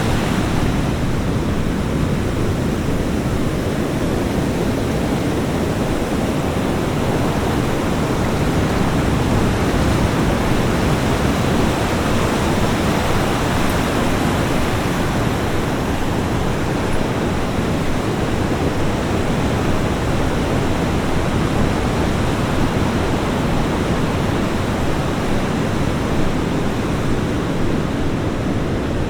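Ocean surf washing onto a beach: a steady, dense rush of breaking waves without distinct single crashes.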